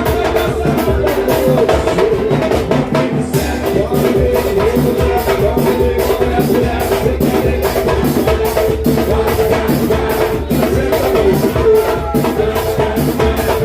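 Brazilian music: drums and hand percussion keeping a steady beat of about four strikes a second, with held melodic tones and some singing over it.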